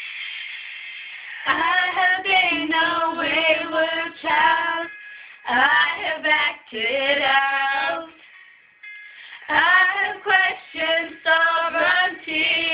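Girls' voices singing a melody in three phrases of a few seconds each, with short breaks between them.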